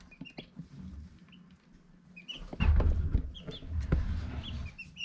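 Baby Dominique chicks peeping in a brooder: short, high chirps, a few at first and coming more often in the second half. Low rustling and bumping noises sound under them in the second half.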